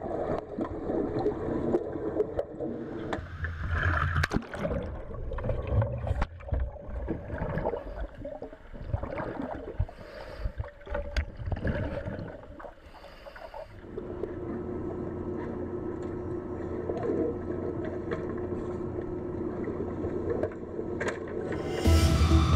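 Water sloshing and bubbling, much of it heard muffled underwater, with scattered knocks and scrapes as a metal-frame egress trainer is capsized and submerged in a pool. For the last several seconds it settles into a steadier muffled underwater rush.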